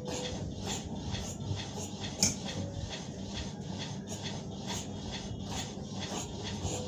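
Large tailor's shears cutting through shirt fabric on a table, a steady run of snips about two and a half a second, one of them louder about two seconds in.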